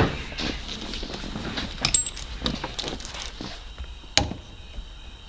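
Scattered clicks, knocks and rustling of hand work fitting an aftermarket steering wheel onto its hub, with a brief squeak about two seconds in and a sharp click about four seconds in.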